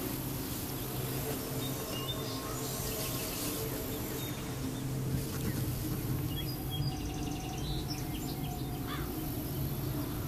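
Outdoor ambience of insects and birds: a steady insect drone with scattered short bird chirps and a brief rapid insect trill near the middle, over a low steady hum.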